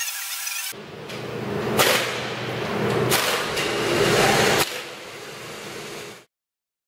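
Three sharp cracks about a second and a half apart over a low rumble, then a quieter stretch that fades out.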